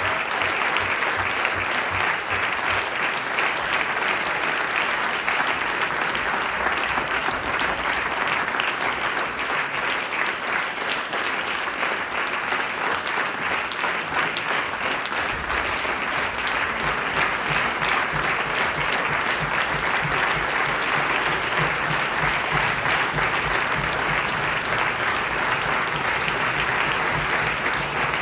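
A theatre audience applauding steadily and without a break at the end of a play.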